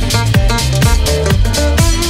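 Electronic dance music with a steady kick-drum beat, a little over two beats a second, under a synth melody.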